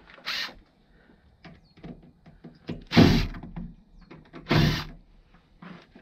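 Makita cordless driver run in three short bursts, backing out the screws that hold a washing machine's drain pump, with small clicks and handling knocks in between.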